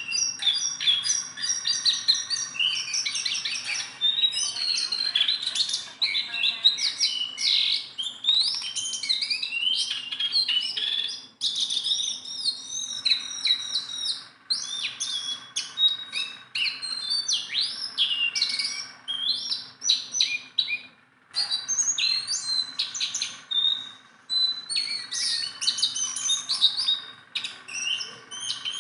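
Caged songbird known in Indonesia as a jongkangan singing continuously: a fast, varied run of high chirps, twitters and trills with only brief pauses.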